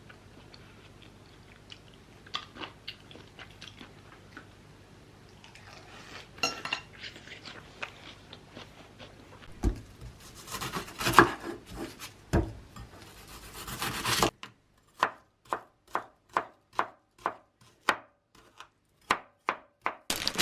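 Knife chopping on a cutting board: a few seconds of clatter and knocks, then a steady run of even strokes, about three a second.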